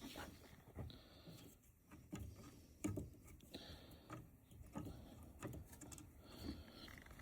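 Faint, irregular clicks and light knocks from hands handling a crimp fitting, crimp ring and tool while refitting an uncrimped cap.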